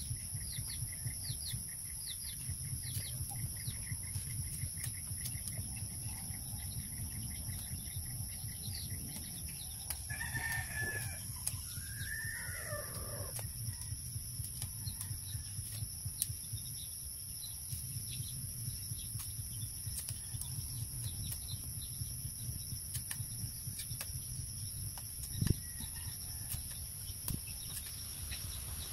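A rooster crows once, about ten seconds in, a rising-and-falling call lasting about three seconds, over a steady high-pitched drone. A single sharp knock a little before the end.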